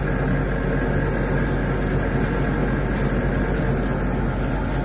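A steady mechanical drone with a continuous low hum, unchanging throughout.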